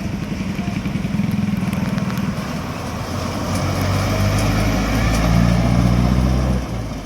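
Bus diesel engine running under acceleration as the bus pulls past, its low drone climbing in pitch over the last few seconds, then dropping away suddenly near the end.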